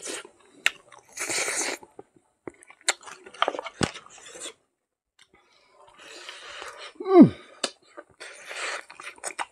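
Close-miked eating: a man chewing mouthfuls of smoked pork and rice eaten by hand, with wet mouth noises and clicks in short bursts. About seven seconds in, one loud mouth sound sweeps quickly down in pitch.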